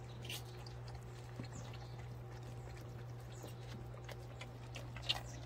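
Several dogs moving about on a paved yard and nosing at eggs: faint scattered clicks and taps, with one sharper click near the end, over a steady low hum.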